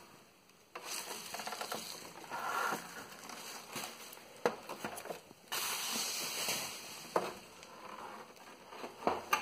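Bubble wrap rustling and crinkling as it is handled and pulled off a computer case, starting about a second in, with a few light knocks.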